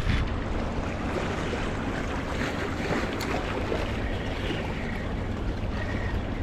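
Waves washing against a rocky seashore, with wind rumbling on the microphone.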